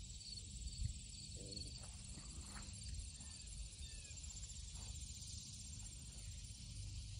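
Faint, steady high-pitched chorus of insects with a fine pulsing rhythm, over a low rumble.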